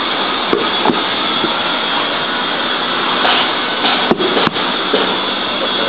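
Steady loud machine noise with a rushing, blower-like quality, with a few sharp clicks, two of them close together about four seconds in.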